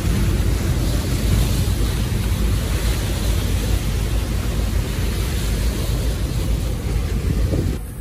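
Sea waves breaking and splashing against shoreline rocks, with wind buffeting the microphone in a steady low rumble.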